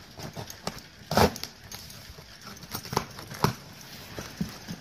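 Cardboard box being opened by hand: packing tape slit with a key and the flaps pulled open, making a string of scrapes, crinkles and knocks. The loudest knock comes about a second in, with two more near the three-second mark.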